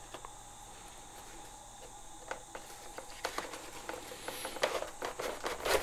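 Light plastic clicks and rustling of RC servo lead connectors and their wires being handled, unplugged and pushed onto the pins of a replacement flight-stabilizer gyro. The clicks come sparsely at first and more often in the second half.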